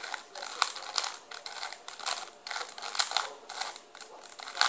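Plastic Rubik's Cube being turned quickly by hand, its layers clicking and rattling in an uneven run of several clicks a second during a speed solve.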